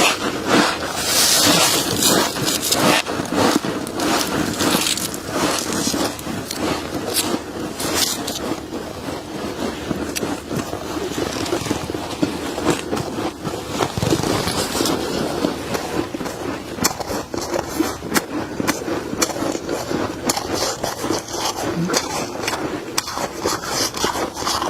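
Freezer frost being scraped and crunched, a dense continuous run of crackling, scraping crunches.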